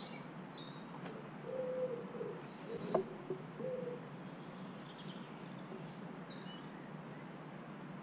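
Faint birdsong with short high chirps, and low hooting bird calls twice in the first half. A single sharp tick sounds about three seconds in.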